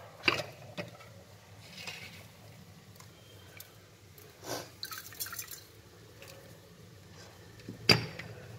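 Coarse crystal salt taken from a glass jar and dropped into a steel pot of water, with small drip-like splashes. Two sharp clicks stand out, one just after the start and one near the end, over a faint steady hum.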